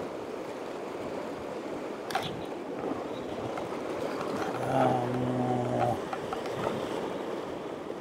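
Sea surf washing and breaking against rocks, a steady rushing. There is a brief click about two seconds in and a short low hum lasting about a second near the middle.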